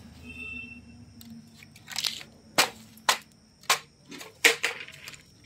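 An anar fountain firework burning out: a faint fading hiss, then a string of sharp crackling pops, about six over three seconds, the loudest near the end.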